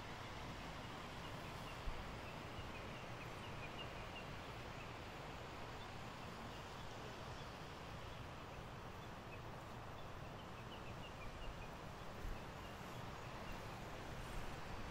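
Steady rush of a river flowing over rocks, with a few faint bird chirps.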